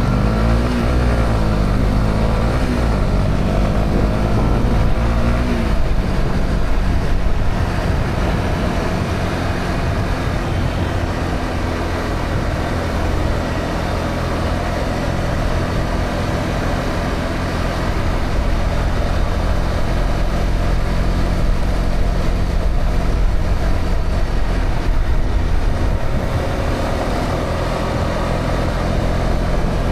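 Honda CB125R's single-cylinder 125 cc four-stroke engine running through its stock exhaust on the move, with wind and road noise. The engine note rises and falls over the first several seconds, then holds fairly steady.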